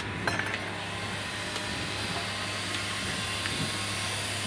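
A steady low hum under an even hiss, with a light click about a third of a second in.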